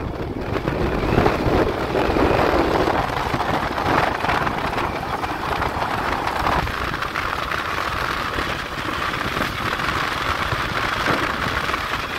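Wind rushing over the microphone and road noise from a vehicle travelling along the road, a steady dense roar with no clear engine note.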